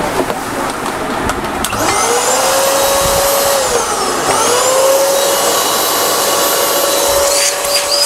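Miyako 1800-watt drum vacuum cleaner running. Its motor whine rises about two seconds in and holds steady, dips briefly around four seconds in and climbs back.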